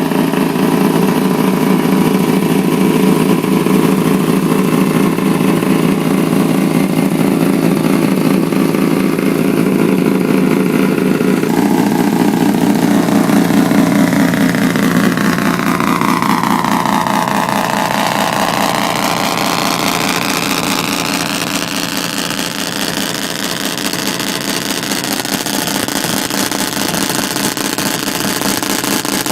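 Rotary (Wankel) car engine running loud, with a sudden change in sound about eleven seconds in; a little later its pitch falls and then climbs back up.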